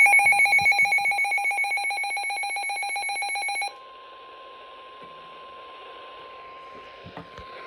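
A loud electronic ringing alarm with a rapid flutter, like a phone bell, fades slowly and cuts off about four seconds in. A fainter steady single tone near 1 kHz follows over radio hiss, the NOAA Weather Radio warning alarm tone before the next broadcast warning.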